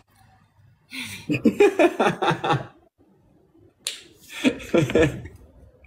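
People laughing hard, in two bursts of rapid, breathy ha-ha-ha: one about a second in, and another a few seconds later, just after a sharp click.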